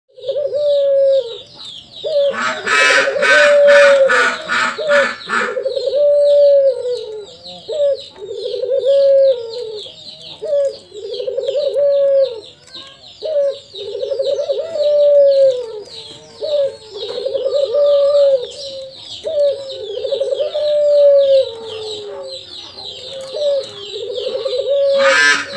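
Barbary (ringneck) dove cooing over and over: a long low coo about every second and a half, each rising then falling. A high rapid chirping runs underneath throughout, and a loud rapid stuttering call breaks in about two seconds in for some three seconds and again near the end.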